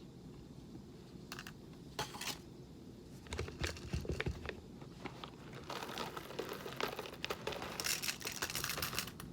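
Whole coffee beans being poured into an electric blade coffee grinder's cup, along with the rustle of handling the bag: a few scattered clicks at first, then a thickening rattle and rustle through the second half.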